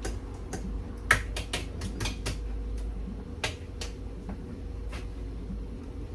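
Irregular clicks and taps of a utensil knocking and scraping against a can and dish as corn is scooped out of the can, with the loudest knocks about a second in and again about three and a half seconds in.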